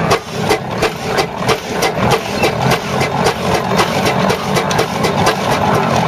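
Steam ploughing engine working under load as it winds the plough in on its cable, its exhaust beating in a steady rhythm of about four chuffs a second.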